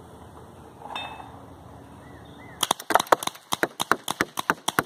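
Two Tippmann paintball guns firing in a rapid volley, about five sharp cracks a second, starting about two and a half seconds in, with paintballs smacking a cardboard TV-box target.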